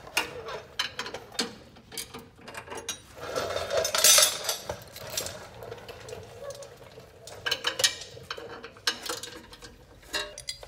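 3/8-inch hand ratchet clicking in short bursts and metal tools and bolts clinking as bracket bolts are loosened, with the loudest clatter about four seconds in.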